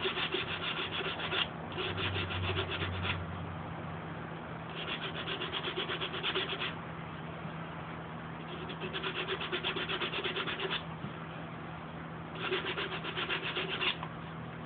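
Hand sanding block with sandpaper rubbing back and forth over cured flowable body-filler putty (Evercoat Metalworks Easy Sand), feathering the edges flush. It comes in five bouts of quick, even strokes with short pauses between them.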